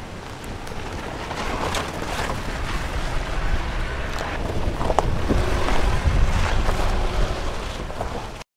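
Jeep Compass driving over a loose gravel dirt track: a low engine and tyre rumble with stones crunching and clicking under the wheels, and wind buffeting the microphone. It grows louder as the car passes close, then cuts off suddenly near the end.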